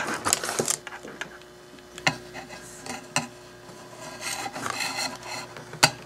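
Rough rope rubbing and scraping against a ribbed tin can while it is being wrapped, with a few sharp clicks and knocks from handling the can and a hot glue gun.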